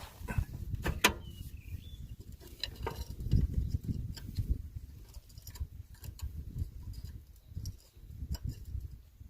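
Scattered clicks and light knocks over an uneven low rumble, with a sharp knock about a second in and the rumble swelling around three and a half seconds in.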